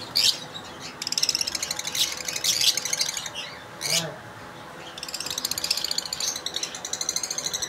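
Lovebirds chattering with rapid, shrill chirps, in bursts with short gaps at first and then steadily from about five seconds in.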